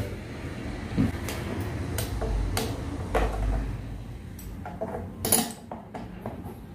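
Small metal clicks and taps as a bolt and screws are handled and fitted by hand to fasten a steel handle rod to the plastic axle clamp of a drum seeder, with a sharper clack a little past five seconds in.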